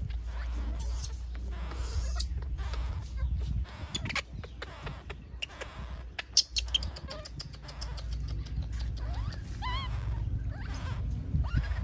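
Small animals giving a few short, high-pitched squeaks and chirps, one a wavering call about ten seconds in, over a steady low rumble and scattered handling clicks.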